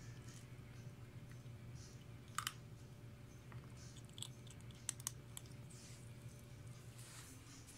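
Kitten chewing dry kibble from a stainless-steel bowl: soft crunching with a few sharp clicks, one about two and a half seconds in and two close together about five seconds in, over a faint low steady hum.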